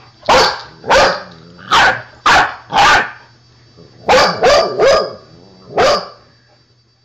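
A dog barking in play, about nine barks: five in the first three seconds, then four more after a short pause.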